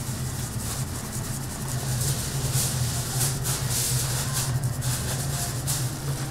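Dry seasoning being shaken from a shaker onto meat, a hissing rattle that comes in uneven shakes, over a steady low hum.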